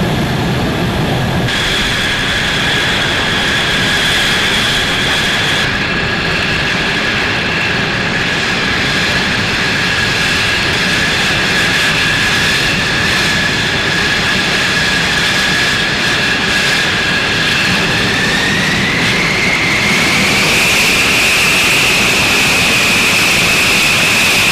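Jet aircraft engine running loud and steady with a high turbine whine. Near the end the whine rises in pitch and holds there.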